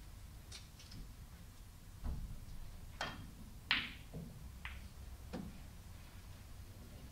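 Snooker shot: a dull thump about two seconds in, then a sharp click of the cue tip on the cue ball and, under a second later, a louder click of ball striking ball, followed by a few softer knocks of balls on the cushions.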